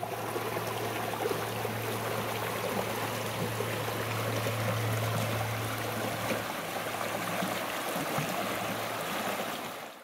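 Waterfall water rushing steadily, with a low steady hum under it that drops in level about six and a half seconds in.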